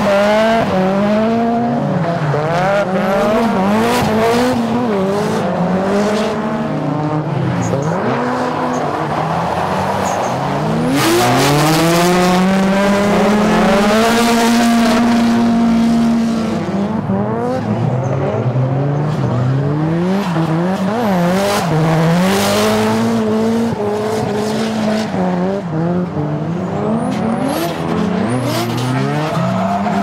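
Modified drift cars sliding past one after another, their engines revving hard and dropping again with the throttle, with tyres squealing through the slides. The longest, loudest pull comes about midway, a single high rev held for several seconds before it falls away.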